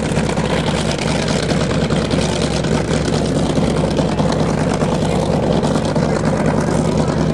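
A steady engine drone: an engine running at a constant speed, with no rise or fall.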